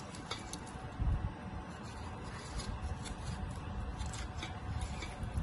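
Kitchen knife cutting watermelon held in the hand, the blade scraping and clicking through the rind and flesh, with a dull thump about a second in.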